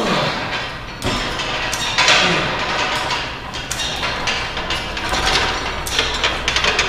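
Lat pulldown machine's weight stack, loaded with the full 150-pound stack, clanking and sliding on its guide rods as it is pulled up and let down in repeated reps.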